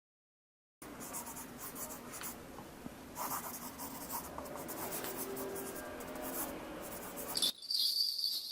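A pen scratching on paper in short strokes, writing for several seconds. Near the end a shaman's hand bells start jingling continuously.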